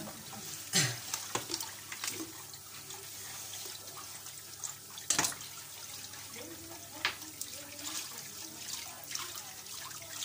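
Kitchen tap running steadily into a sink, with a few sharp knocks and clinks of kitchenware, the loudest about halfway through.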